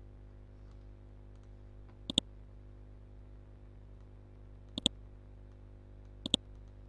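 Computer mouse button clicked three times, about two, five and six seconds in; each click is a quick press-and-release pair of snaps. Under the clicks runs a steady low electrical hum.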